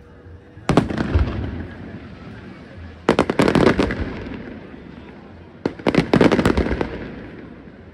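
Aerial firework shells bursting in three volleys, about a second in, about three seconds in and near the end. Each volley is a quick cluster of sharp bangs and crackles that trails off into a rumble.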